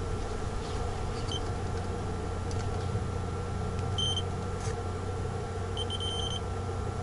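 Steady low hum of the ice-fishing tent's heating unit, with short high electronic beeps over it: one about a second and a half in, another about four seconds in, and a quick run of about five near the end.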